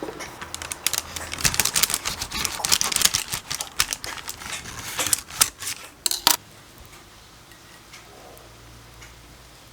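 A quick, irregular run of sharp clicks and taps, stopping about six seconds in.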